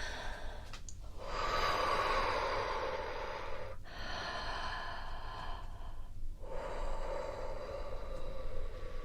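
Slow, deep human breathing, in and out, in about three long breaths of two to three seconds each with short pauses between them.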